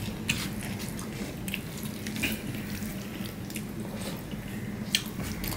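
Fingers squishing rice into runny dal on a steel plate, making soft wet squelches and scattered small clicks, with mouthfuls being eaten. A steady low hum runs underneath.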